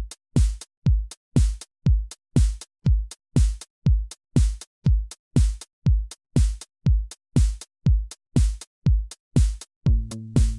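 Electronic music opening on a drum-machine kick drum alone, about two beats a second, each kick falling in pitch. Near the end a sustained synth bass line comes in under the beat.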